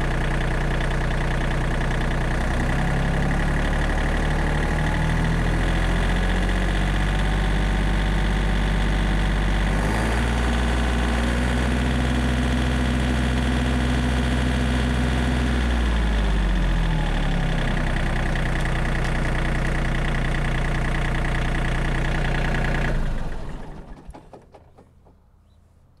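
John Deere 3025E compact tractor's three-cylinder diesel engine running near idle. About ten seconds in it is revved to about 2,500 rpm with the rear PTO engaged, held there for several seconds, then brought back down to idle. Near the end the engine is shut off and dies away.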